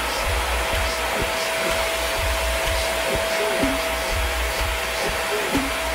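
Nikai canister vacuum cleaner running steadily: a constant rushing hiss from the motor and airflow, with a steady whine over it.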